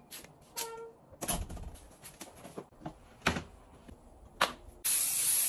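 A short electronic beep from a door lock, then scattered clicks and knocks, and about a second of steady hiss near the end.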